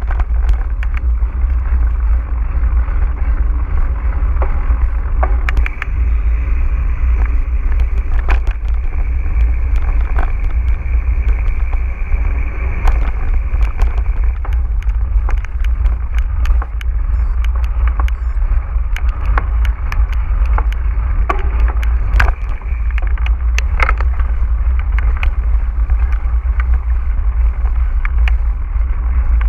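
Mountain bike ridden over rough ground: a steady, muffled low rumble with frequent sharp clicks and rattles.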